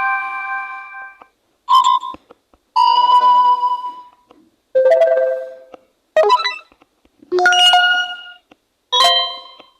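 Android tablet notification tones previewed one after another: about six short, different electronic chimes, each fading out before the next begins every second or two.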